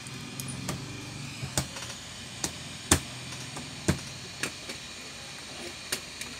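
Irregular sharp clicks and taps, about eight in all, over a steady low hum: a laptop's plastic screen bezel being pressed and tapped into place with a metal tool.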